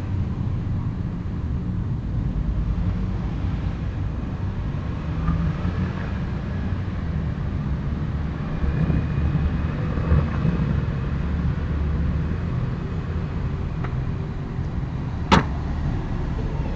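Steady low rumble of outdoor background noise, with one sharp click about fifteen seconds in.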